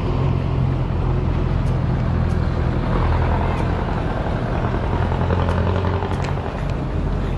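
Steady low engine hum with road noise from a motor vehicle moving along a city street, with a few faint clicks.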